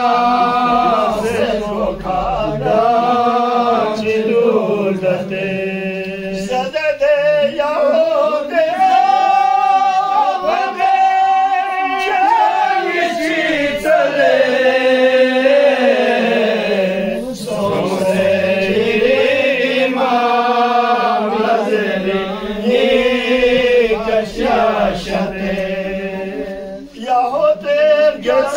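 A group of men chanting a Purgi devotional qasida together, unaccompanied, in long wavering held notes.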